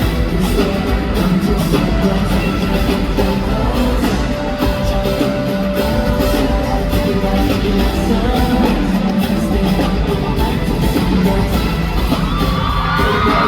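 Loud live K-pop played through a concert PA: a heavy beat with the group's vocals. An audience yells and cheers over it, most plainly near the end.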